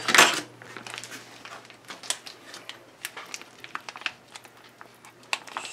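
Plastic film wrap on a tray of ground pork crinkling and rustling as it is pulled off, with a loud rustle right at the start and scattered small crackles after.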